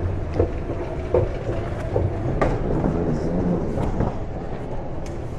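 Train running: a steady low rumble with scattered clicks and knocks.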